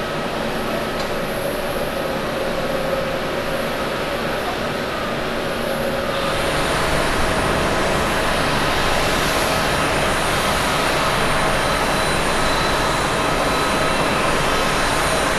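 Jet airliner engine noise, a steady rumble from an ANA Boeing 777 climbing away after takeoff. About six seconds in it switches to an ANA Boeing 787-9 Dreamliner on final approach over the runway, its Rolls-Royce Trent 1000 turbofans giving a steady rushing noise with a high engine whine.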